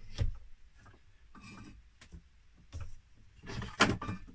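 Wooden pieces being handled and set down on a bench drill's table, knocking and scraping: offcuts of pallet wood packed under the blank to give the drill more travel. A short knock at the start and a louder clatter with a sharp knock near the end.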